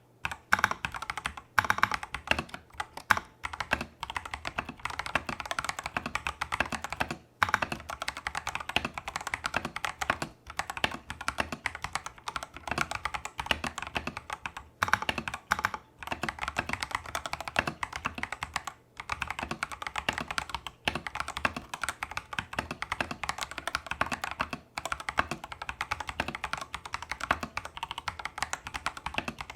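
Typing on a Tester68 mechanical keyboard with stock, factory-lubed clone Holy Panda tactile switches and XDA-profile keycaps: fast runs of keystrokes broken by brief pauses every few seconds.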